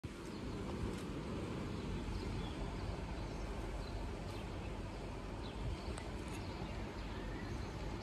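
Outdoor residential ambience: a steady low rumble with a few faint, scattered bird chirps.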